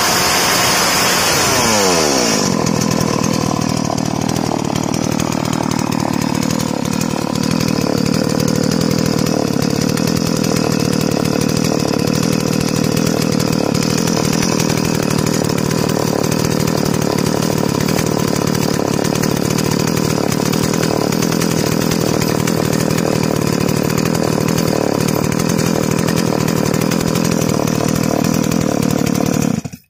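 Freshly rebuilt Stihl MS 381 two-stroke chainsaw engine running without bar or chain. Its revs drop quickly from high throttle to a steady idle in the first couple of seconds, then it idles evenly until the sound cuts off abruptly near the end. The newly assembled engine is running normally on its test run.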